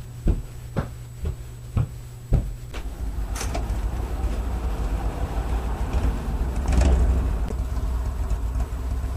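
Footsteps, six thuds about half a second apart, then a steady low rumble that lasts to the end.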